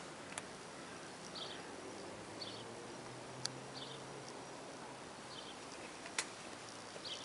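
Steady outdoor background noise with a short high chirp repeating about once a second, and three sharp clicks spread through it.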